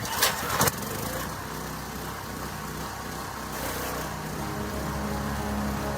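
Small petrol engine of a pressure washer running steadily, after a few sharp knocks near the start.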